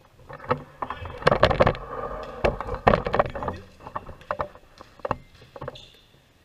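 Basketball game on a hardwood gym floor: a series of sharp thuds and knocks from the ball bouncing and players' footsteps, loudest in a busy stretch from about one to three and a half seconds in.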